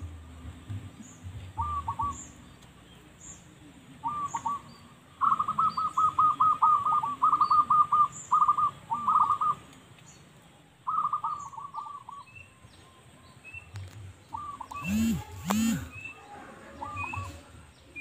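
Zebra dove (perkutut) song: bouts of rapid, rhythmic cooing notes, the longest bout about five seconds in. Thin chirps of small birds sound over it, and two short, loud calls come near the end.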